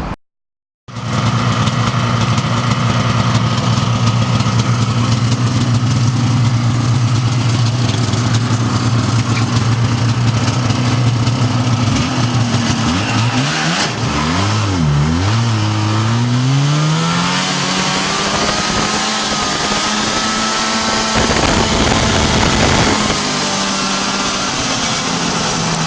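Vintage snowmobile engine running steadily at a low speed, blipped up and down a few times about halfway through, then brought up to a higher, steady speed.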